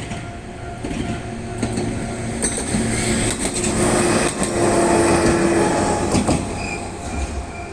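A train passing over a level crossing, loudest about four to six seconds in, its wheels clicking over the rail joints. Under it runs the steady tone of the crossing's warning signal.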